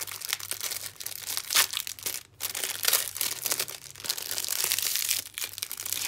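Clear plastic sleeve crinkling and crackling as paintbrushes are pulled out of it, in irregular bursts, two of them louder in the first half.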